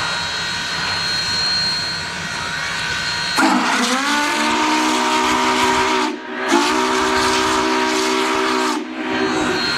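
Union Pacific 844's steam whistle blowing two long blasts, a chord of several tones that starts a little sharp and settles, with a brief gap between the blasts. A steady hiss runs before and after them. Two long blasts is the standard signal that the brakes are released and the train is about to proceed.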